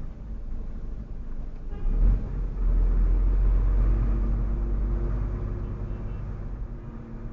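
Lorry's diesel engine and drivetrain rumbling from inside the cab as the truck rolls slowly. There is a low thump about two seconds in, then a louder low rumble that gradually fades.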